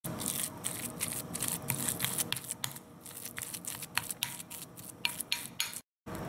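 Small metal spoon mashing and stirring soft butter with chopped parsley and garlic in a glass bowl: quick, irregular clicks and scrapes of the spoon against the glass. The sound cuts off abruptly near the end.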